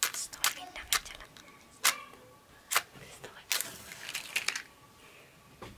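A series of irregular sharp clicks and knocks, about eight or nine in all, the loudest about two seconds in.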